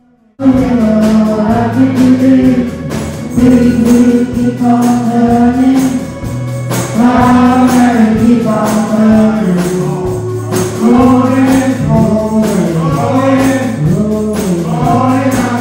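Amateur band music with group singing over a steady percussion beat, starting abruptly about half a second in.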